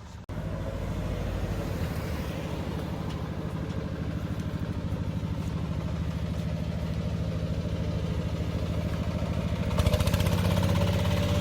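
Walking tractor's single-cylinder diesel engine running with a steady, rapid chug. It grows louder and harsher about ten seconds in.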